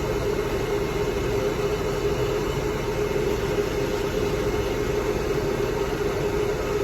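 Hair dryer running steadily: a continuous rush of blown air with an even hum.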